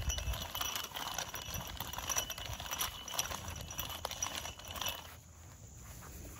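Garden Weasel rotary cultivator's metal tines rolling and scraping through seeded bare soil to work grass seed in. It makes a run of gritty scratches and light metallic clinks that stops about five seconds in.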